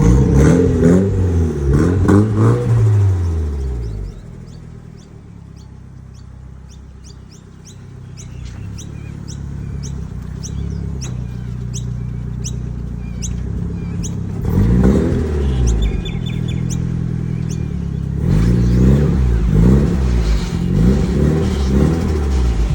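Turbocharged Nissan Silvia S15 engine revved in sharp throttle blips, with turbo flutter as the throttle snaps shut. It falls back to a quieter run about four seconds in, builds slowly, revs again around the middle, and ends on a quick run of repeated blips.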